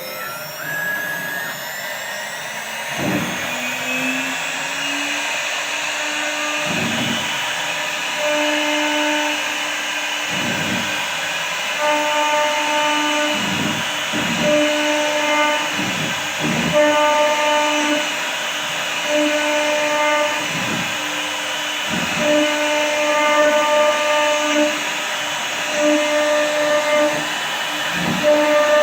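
CNC router at work: a motor whine that rises in pitch over the first few seconds, then a steady hum with higher stepping-motor tones switching on and off about every second as the machine moves through its cut, and occasional low knocks.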